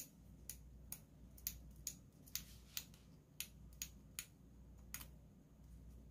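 Scissors snipping through a vinyl peel-and-stick decal sheet in short, sharp cuts, about two snips a second, faint.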